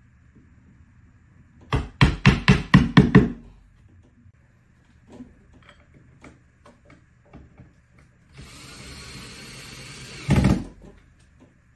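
About seven quick, loud hammer blows into the wall, then a few light clicks and taps. A cordless drill then runs steadily for about two seconds, driving into the wall, and ends in a short louder burst just before it stops.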